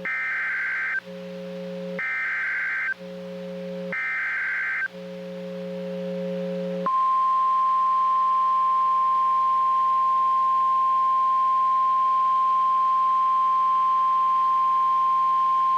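NOAA Weather Radio Emergency Alert System signal opening a severe thunderstorm warning. Three one-second bursts of screechy SAME header data, each about a second apart, with a low buzz in the gaps between them. Then the steady 1050 Hz warning alarm tone sounds for about nine seconds.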